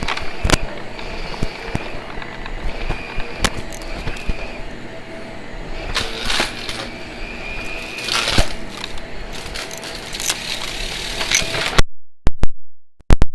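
Vacuum cleaner running, with scattered clicks and knocks over its steady noise. The sound cuts out abruptly near the end, leaving only a few clicks.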